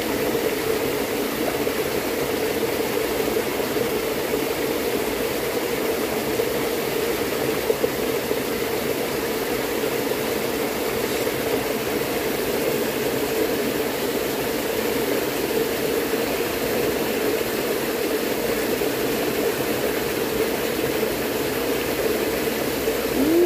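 Small stream's water running steadily: a constant rush with a steady low hum in it. One brief knock about eight seconds in.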